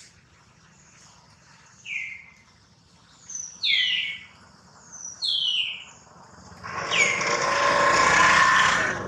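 Three short, high, falling animal calls, a second or so apart, then a fourth call that runs into a louder, rough, hissing sound lasting about two seconds near the end.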